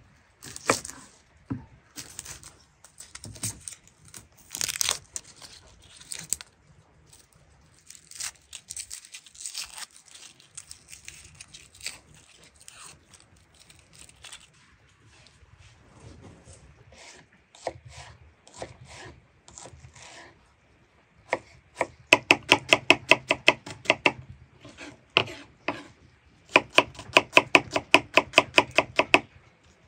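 Irregular tearing and rustling of food being handled, then two runs of fast knife chopping on a cutting board, about seven or eight strokes a second, in the second half.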